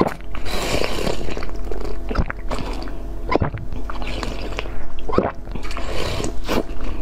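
Close-up jelly eating: wet squishing and slurping as soft jello is sucked and bitten at the lips, with several sharp squelchy clicks.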